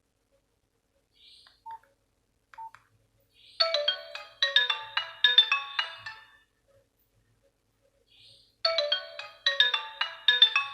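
Nokia 105 mobile phone: two short key beeps, then a ringtone phrase of quick bright notes. The phrase plays for about two and a half seconds, stops, and starts over about 5 seconds in, repeating as the ringtone loops.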